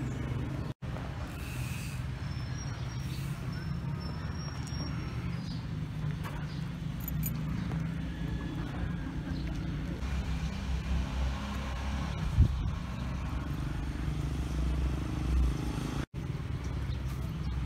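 Steady low rumble of outdoor road ambience, with one sharp knock about twelve seconds in; the sound drops out for an instant twice at edit cuts.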